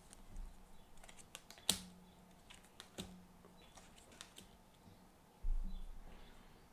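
Tarot cards being handled and laid on a table: a scattering of light clicks and taps. Near the end comes a low thump.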